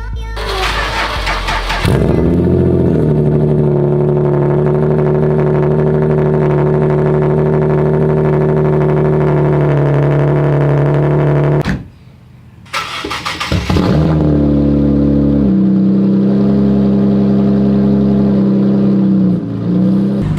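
Twin-turbo VR30 V6 in a Nissan 350z, running through a titanium straight-pipe exhaust, being started: a couple of seconds of cranking, then the engine catches with a flare and settles into a steady idle. The sound drops out briefly a little past halfway, and the engine is started again the same way, flaring and then idling steadily.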